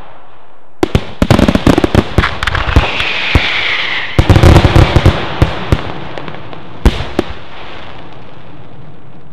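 Fireworks display: about a second in, a rapid volley of sharp bangs from bursting shells, then a stretch of crackling hiss, then a second dense volley of loud bangs about four seconds in. Scattered single reports follow and die away.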